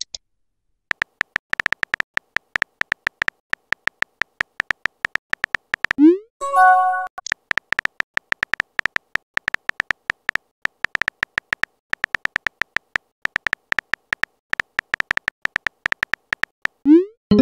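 Simulated phone-keyboard typing clicks from a texting-story app: rapid, uneven ticks, each with a slight high tone. About six seconds in, a single message-sent pop rises quickly in pitch and ends in a short chime.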